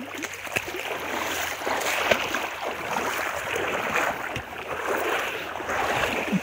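A person wading through deep, muddy floodwater in a stream, legs splashing with each step as the water rushes around them.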